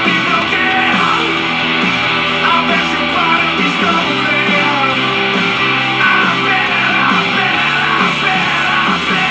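A rock song with singing, playing steadily on a radio in the room.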